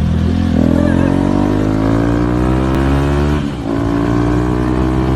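Motorcycle engine accelerating hard, its pitch rising steadily, with a brief drop about three and a half seconds in, after which it runs on at a steady high pitch.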